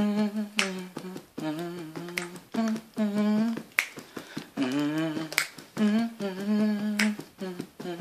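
A voice humming a short repeating tune in held notes, with finger snaps about every second and a half keeping time: a homemade beat for rapping over.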